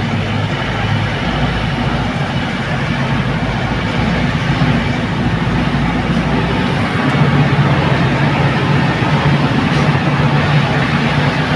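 Truck engine running and road noise from inside the cab while driving, with a steady low drone. A little past halfway the lowest part of the drone drops away and the engine note sits higher.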